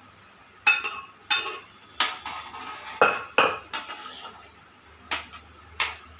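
A metal ladle clanking against a stainless steel pot while peas are stirred into a thick gravy: about seven sharp, ringing knocks at irregular spacing, with soft scraping between them.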